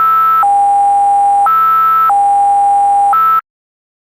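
Loud, buzzy electronic beep that switches back and forth between a lower and a higher pitch several times at uneven intervals, then cuts off abruptly about three and a half seconds in.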